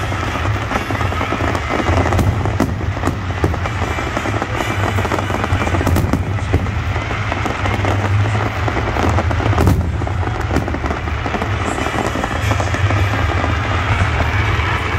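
Fireworks display going off without a break: many overlapping bangs and crackles of bursting shells in quick succession, over a heavy low rumble.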